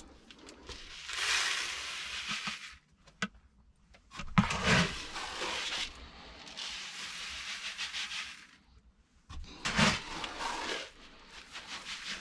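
Dry grain being scooped out of a plastic barrel and poured into a chicken feeder. The kernels hiss and rattle in several pours, each a second or two long, with a few light knocks in between.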